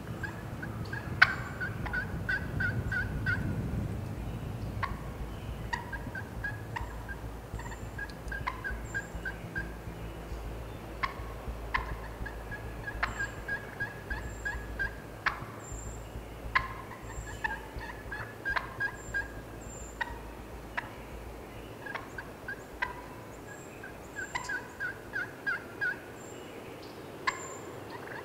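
Turkey calling: series after series of short, evenly spaced notes, many starting on a lower note, with sharp clicks scattered among them.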